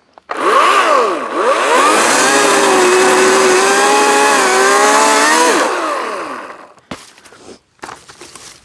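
Battery-powered electric chainsaw revving up twice in short bursts, then running steadily as it cuts through a small branch, its pitch sagging a little under the load before it winds down about six seconds in. Light rustling and clicks of branches follow near the end.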